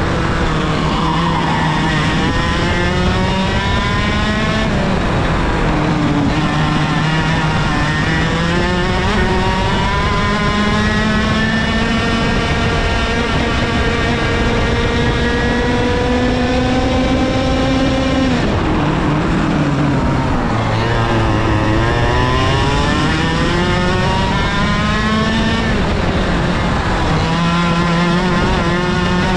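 KA100 100cc two-stroke kart engine at race pace. Its pitch climbs along the straights and drops off into the corners, with a deep fall about nineteen seconds in before it winds back up.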